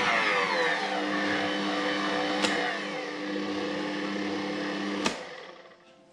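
Bosch electric mixer motor driving its kneading hooks through cake batter, dropping in pitch as it is switched down a speed at the start. It runs steady, with a click about two and a half seconds in, then is switched off with a click about five seconds in and winds down.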